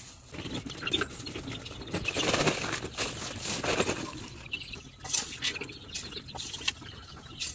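Shovel scraping up dry chicken manure mixed with rice hull and tipping it into a woven sack: rustling, scraping and pattering of the litter, loudest about two to four seconds in.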